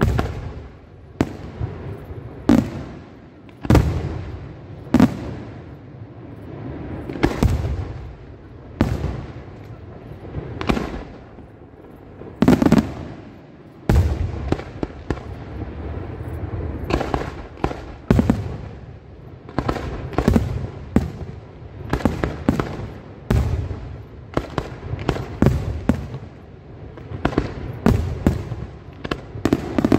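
Aerial firework shells bursting one after another: sharp bangs every second or so, each followed by a rumbling echo. The bangs come thicker and faster in the second half, with crackling between them.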